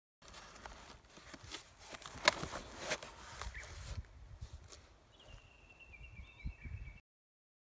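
Large cardboard box handled on the ground: rustling and scraping with a few sharp knocks, the loudest about two seconds in. In the last two seconds a faint, thin, high whistling call, a bird, sounds over low rumbling.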